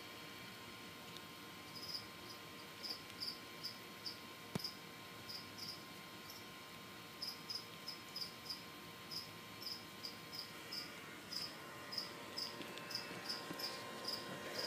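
Cricket chirping: short, high chirps at one steady pitch, starting about two seconds in and coming more often, roughly two a second, in the second half.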